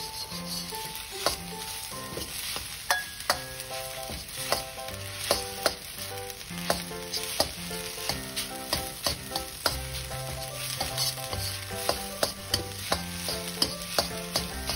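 Rice and egg sizzling in a hot wok while a metal ladle stirs and scrapes it, knocking sharply against the wok about twice a second. Background music plays steadily underneath.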